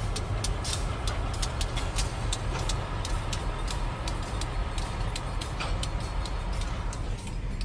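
Freight train with an RJ Corman diesel locomotive and tank cars rolling slowly past: a steady low rumble with irregular sharp clicks from the wheels on the rails.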